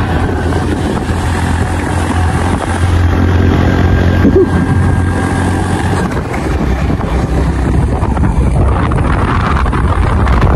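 Motorcycle engine running steadily under way, with wind rushing over the microphone; the engine's low note drops a little about six seconds in.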